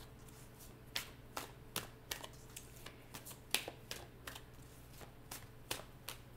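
Tarot cards being shuffled and handled: a string of sharp, irregular card snaps and taps, about one or two a second, over a faint steady hum.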